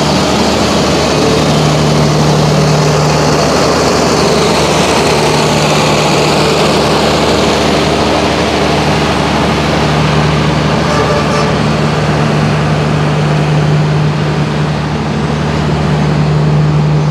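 Engine-driven generator set running steadily with a constant low hum, over loud road traffic noise.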